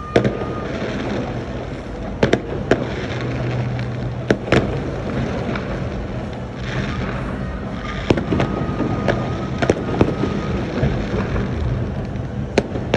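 Fireworks going off: a dozen or so sharp bangs at irregular intervals, bunched around two seconds in, again around four and a half, and from about eight seconds on, over a continuous noisy rumble of distant bursts.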